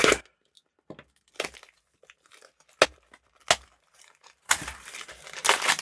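Plastic packaging being handled and torn open by hand: scattered sharp crackles, then a longer crinkling rustle near the end.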